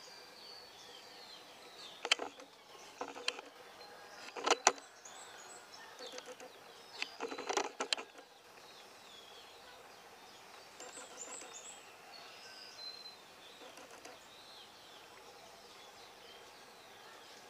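Birds chirping and calling over a steady outdoor hiss, with several short, sharp, louder sounds between about two and eight seconds in. No aircraft is heard.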